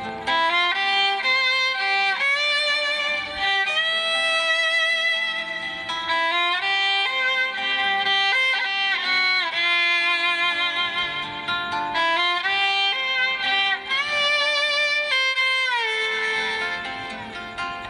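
Background music led by a violin playing a slow melody, with held notes and vibrato.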